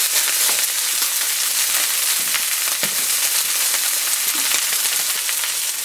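Ribeye steak searing in a smoking-hot cast iron skillet with olive oil: a steady sizzle with many fine crackles of spitting fat and oil.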